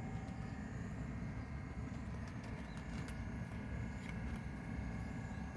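Cats crunching dry kibble, a few sparse crisp clicks, over a steady low outdoor rumble.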